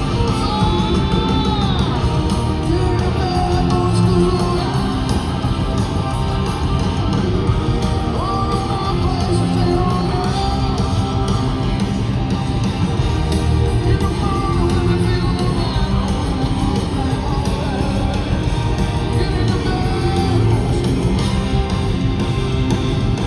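Live rock band playing loud, with distorted electric guitar, bass and drums, and a voice singing and shouting at times.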